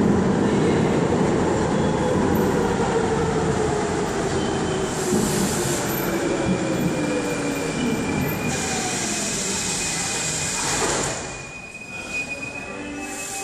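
Budapest Metro Line 1 train pulling into the station and braking to a stop. There is dense running noise under a motor whine that falls in pitch as it slows, two bursts of hiss and a thin high squeal from about halfway. It all drops much quieter about eleven seconds in, once the train stands.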